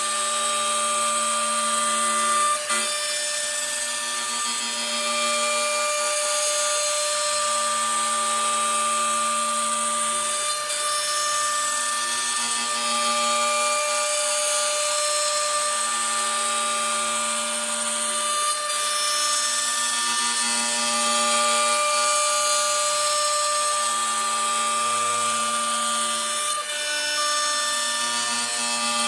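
Hitachi M12 router motor on a Zenbot 4896 CNC router, spinning at speed with a steady high whine while its bit cuts a circle through fibreboard. A lower hum swells and fades about every two and a half seconds, in step with the machine going round the circle.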